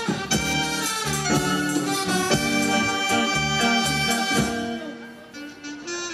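Saxophone-led wind ensemble playing a bolero medley live: sustained harmonized chords over a moving bass line. The playing drops softer for a moment about five seconds in, then picks up again.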